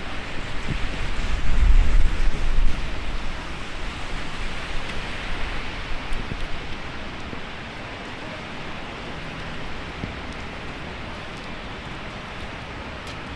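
Heavy rain falling as a steady hiss, with gusty wind buffeting the microphone as a loud low rumble in the first few seconds, easing after that.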